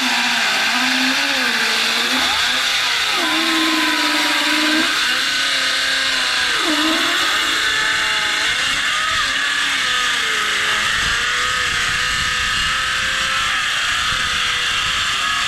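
Hand-held electric saw ripping lengthwise through a blackwood acacia slab. Its motor pitch repeatedly dips and recovers as the blade loads up in the hardwood: an underpowered saw labouring in the cut.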